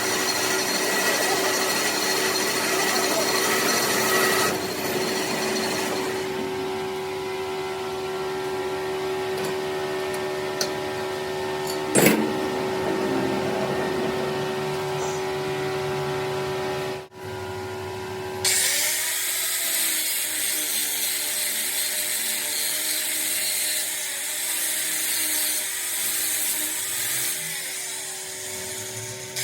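Machine-shop power tool running with a steady whine, the sound changing abruptly a few times, with a sharp click about twelve seconds in and a harsher, noisier run in the last third.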